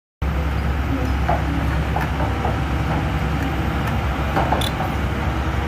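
Engine-driven pressure washer running steadily, a low engine hum under the loud hiss of the spray. It starts abruptly about a fifth of a second in.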